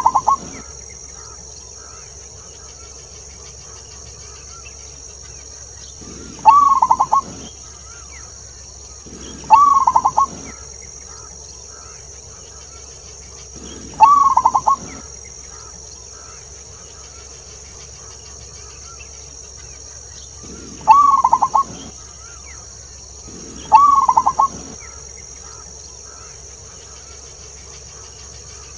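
Zebra dove cooing: six short rippling phrases of rapid notes, each about a second long and several seconds apart. A steady high buzz runs underneath.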